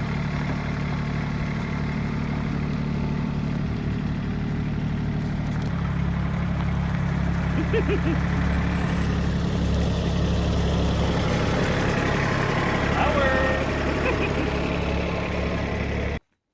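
Tractor engine running steadily, its note shifting slightly about six seconds in.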